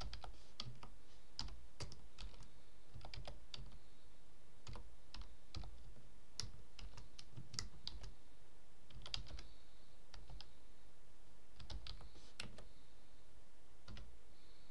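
Typing on a computer keyboard: key clicks in uneven runs with short pauses between them.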